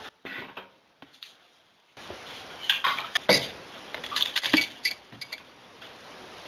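A glass coffee mug clinking and knocking as it is handled, several sharp clinks in a cluster after a second or two of near silence.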